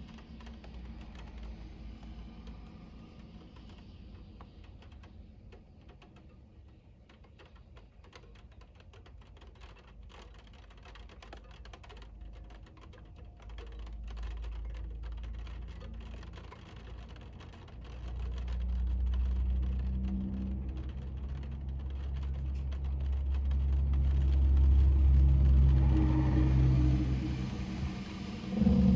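Car engine running with a low rumble, quiet and mixed with faint clicks at first, then growing much louder from a little past the middle and swelling further near the end.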